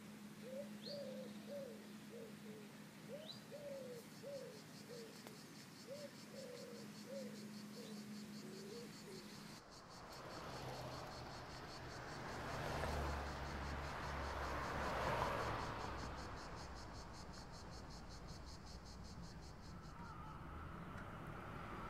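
Birds and insects: a bird gives a run of short, low repeated calls while an insect chirrs with a fast, even pulse. About ten seconds in the calls stop and a rushing noise swells and fades, loudest a little past the middle.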